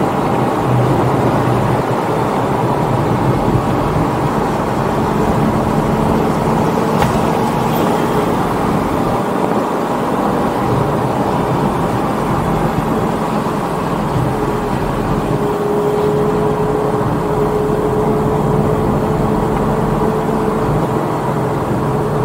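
Straight-piped 2004 Lamborghini Gallardo's 5.0-litre V10 running at a steady cruise, its exhaust drone and road noise heard from inside the cabin.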